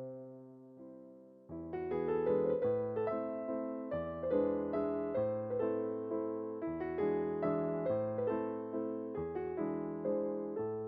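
Background music: a gentle piano tune. It holds a soft chord for the first second and a half, then plays a steady run of notes.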